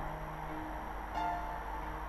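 Instrumental background music, held notes changing a few times.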